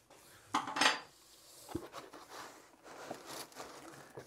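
Unpacking noise as 3D printer parts are handled in foam packing: a loud clatter and rustle about a second in, a sharp click, then softer scraping and rustling as the printer base is lifted out of the foam.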